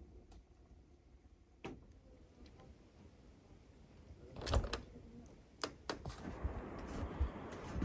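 Several sharp knocks and thuds, the loudest about four and a half seconds in, then a steady rushing noise that comes up about six seconds in.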